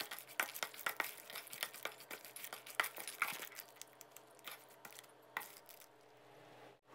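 Crispy fried rice salad being tossed with a wooden spoon in a stainless steel bowl: faint, irregular crunching and light clicks that thin out after about five seconds.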